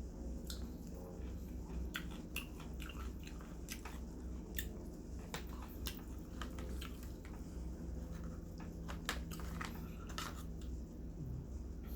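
A person chewing and biting into roast chicken, with many small irregular wet clicks and crackles of mouth and food. A steady low hum runs beneath and stops near the end.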